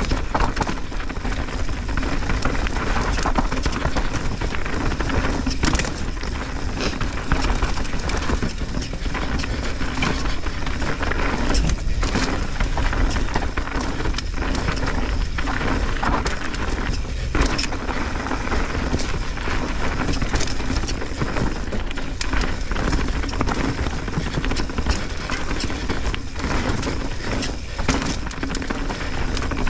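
Mountain bike riding fast down a dirt singletrack, heard from a rider-mounted camera: a steady rush of tyres on dirt and wind, broken by frequent knocks and rattles as the bike hits bumps and roots.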